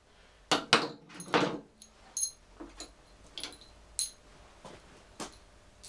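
Metal tools and parts being handled on a workbench: a few sharp knocks in the first second and a half, then lighter metallic clinks with a short ring, about once a second.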